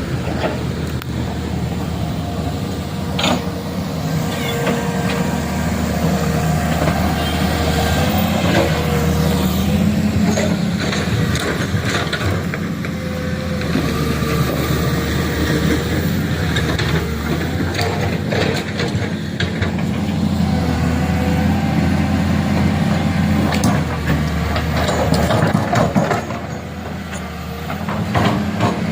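Heavy truck engine running, its pitch rising and falling, with a few sharp knocks.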